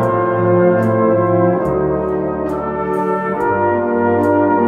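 Brass band of cornets, tenor horns, euphoniums, trombones and tubas playing sustained chords over a bass line that steps to new notes. A drum kit strikes on the beat about every 0.8 s.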